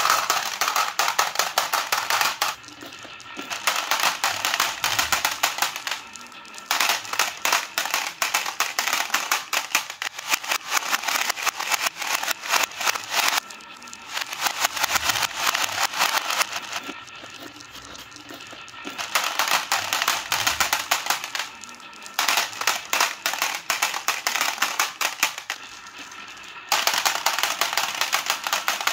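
Glass marbles clattering down a wooden track with hollows and dropping into a plastic toy dump truck bed: fast runs of clicks and clacks in bursts of a few seconds, with short lulls between batches.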